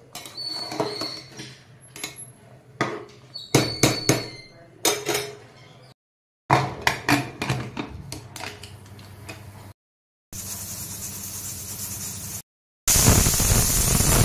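A metal ladle clinks and scrapes against an aluminium pressure cooker while rice and dal are stirred, then the metal lid clanks as it is fitted and locked. Steam then hisses, and near the end comes a much louder hiss: the pressure cooker's weight valve venting its whistle, the sign that pressure is up.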